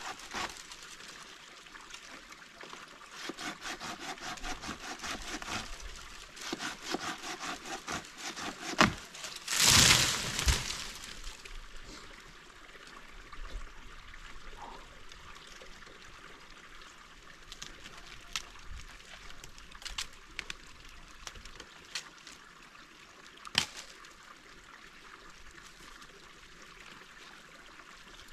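A man in a tree cutting at a branch by hand, a rapid rhythmic rasp of a few strokes a second, then the branch crashing down through the twigs about ten seconds in. Scattered snaps and knocks of wood follow as he moves in the tree.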